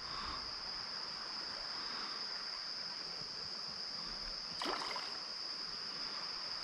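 A steady, high-pitched insect trill over faint water lapping, with one brief splash about two-thirds of the way in from a hooked smallmouth bass thrashing at the surface.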